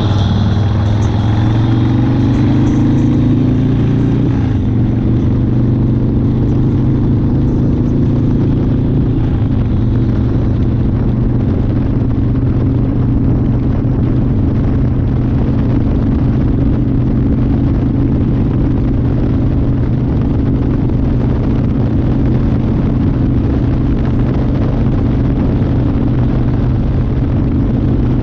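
1992 Harley-Davidson Fat Boy's Evolution V-twin engine under way. Its note climbs over the first few seconds, drops about four to five seconds in, then holds as a steady drone at cruising speed.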